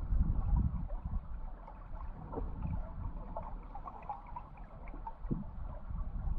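River current recorded underwater: a low rumble that swells and fades, with faint scattered ticks and gurgles.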